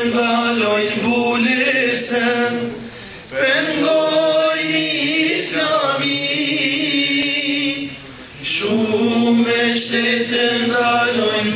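A group of men singing together in held, sustained notes. The singing dips briefly about three seconds and about eight seconds in, between phrases.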